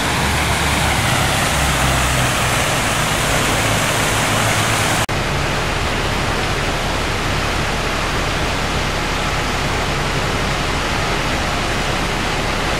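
Steady rush of running water, with a low rumble of traffic under it for the first five seconds. About five seconds in, a sudden cut brings an even rush of water pouring over a stepped fountain cascade.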